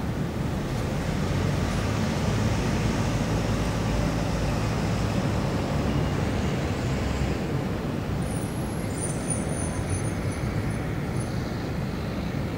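City street traffic: a steady rumble of passing road vehicles, swelling a little in the first few seconds. Faint high squeaks come about two thirds of the way in.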